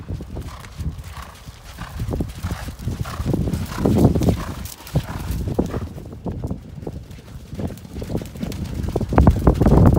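Hoofbeats of racehorses walking: an uneven clip-clop of knocks that grows louder as horses pass close, about four seconds in and again near the end.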